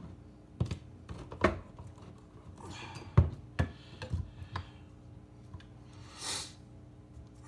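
A handful of separate knocks and clicks, the loudest about three seconds in, and a short hiss near the end; no drill is running.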